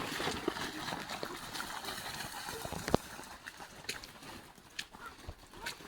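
Water splashing and trickling, with scattered small clicks and one sharp knock about three seconds in.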